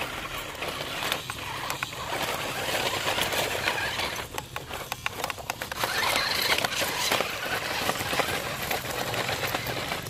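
Rock Master 4x4 toy RC rock crawler's electric motor and gearbox whirring as it climbs over loose broken bricks and stones, with many small clicks and scrapes of rubble under the tyres. The whirring swells and falls, dropping off briefly a little before halfway.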